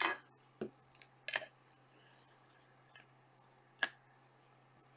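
Trading cards in clear rigid plastic holders being handled: a few light plastic clicks and a short rustle in the first second and a half, then one sharper click near four seconds in as a plastic case is set down.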